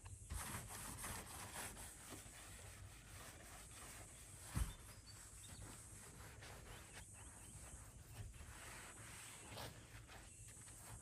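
Faint scrubbing strokes of a hand-held pad rubbed over an aluminium dinghy hull, against outdoor ambience, with one dull knock about halfway through.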